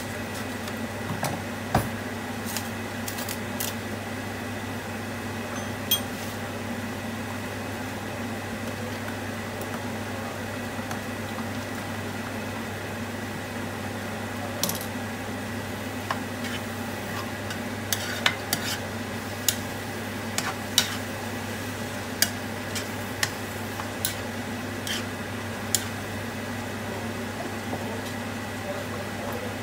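Pork mince and tomatoes sizzling in a frying pan over a steady low hum, with scattered sharp clinks of a whisk against a steel jug as lasagne mix powder is stirred into water.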